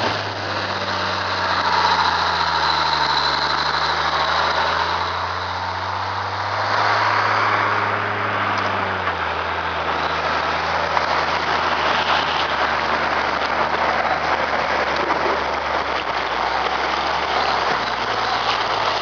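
ATV engine running, its pitch dipping and rising with the throttle through the first half, then holding steadier, over a steady rushing noise.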